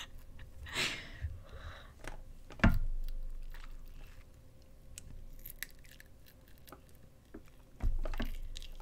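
Close-miked chewing of a roasted salt-and-vinegar bug, with small crunchy clicks. Two dull thumps break in, the louder one a little under three seconds in and another near the end.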